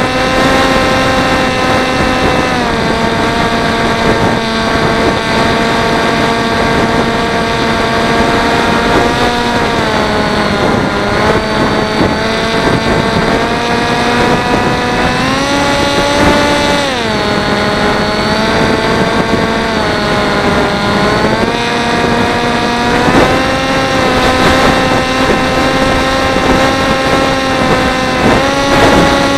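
Teksumo flying wing's electric motor and propeller whining in flight, heard from the onboard camera over steady wind noise. The pitch drops a few seconds in, rises sharply about halfway through and falls back, then rises again near the end as the throttle changes.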